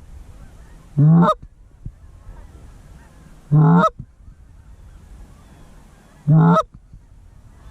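Three loud, short goose honks, spaced about two and a half seconds apart.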